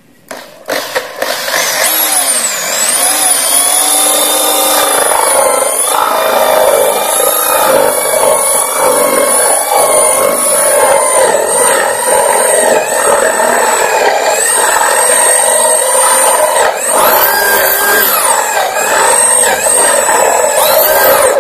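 Electric drill boring a 35 mm Forstner-type hinge bit into a laminated board, cutting the cup hole for a concealed cabinet hinge. The motor runs steadily under load with a high whine that wavers in pitch as the bit cuts, and cuts off suddenly at the end.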